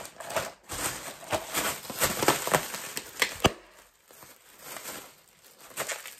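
Clear plastic bags of squeeze tubes crinkling and rustling as they are handled and shaken, a quick run of sharp crackles that thins out about halfway through.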